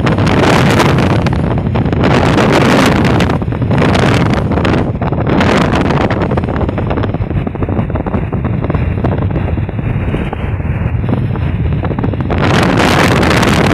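Loud, steady travel noise of a moving bus: road and wind noise over a low rumble, with wind buffeting the microphone. It eases a little midway and swells again near the end.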